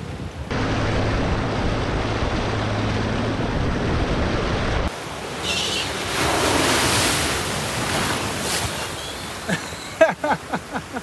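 Mercedes-Benz G-Class wading through deep water, its bow wave rushing and splashing around the body, with a steady low engine hum in the first half. A few sharp knocks come near the end.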